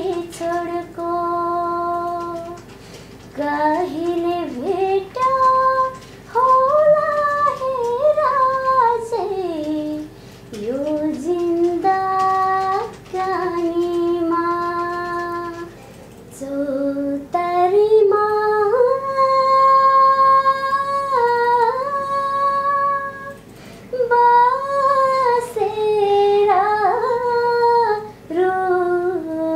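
A young woman singing a Nepali adhunik (modern) song solo, with long held notes and sliding ornaments between them and short pauses for breath.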